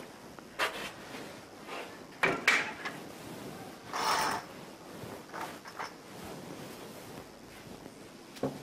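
Scattered short knocks, scrapes and rustles of someone moving about and handling a cloth curtain. The loudest clatter comes about two and a half seconds in, and a brief swish of the curtain being pulled comes about four seconds in.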